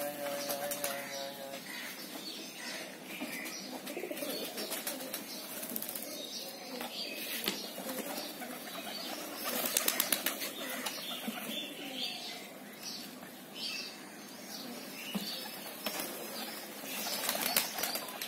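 Domestic pigeons flapping their wings as they flutter up from and land on the ground among a feeding flock, in repeated clattering bursts that are thickest about ten seconds in and again near the end.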